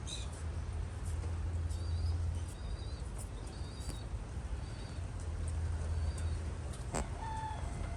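An old buck rabbit making its noise while eating with its mouth full: a run of short, high squeaks repeating under a second apart over a low steady rumble, with a sharp click about seven seconds in. The breeder takes it for a harmless sign of old age, not the tooth grinding of a rabbit in pain.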